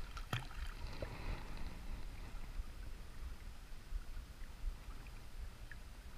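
Water sloshing around people wading in a shallow river, over a steady low rumble. A few sharp clicks come about a third of a second in.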